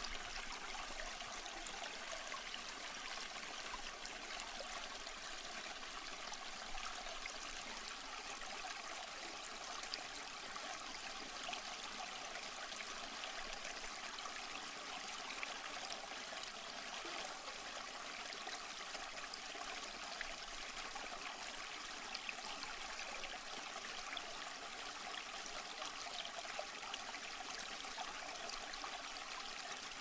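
Small waterfall, several streams falling over rocks and splashing steadily into a shallow pool.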